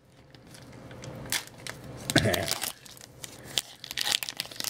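Foil wrapper of an Upper Deck hockey card pack being torn open and pulled apart by hand, crinkling and crackling in quick irregular snaps.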